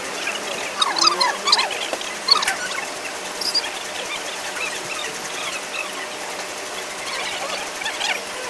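Hand milking of a Holstein Friesian cow: streams of milk squirting into a steel pail in a steady rhythm, amid short high chirps and squeaks, most of them between one and two and a half seconds in.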